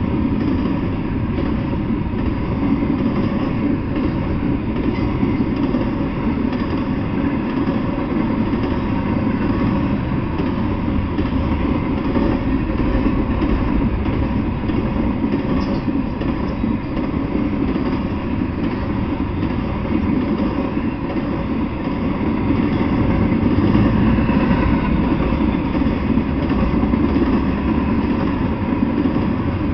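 Double-stack intermodal freight train rolling past, with a steady, unbroken noise of its wheels running on the rails.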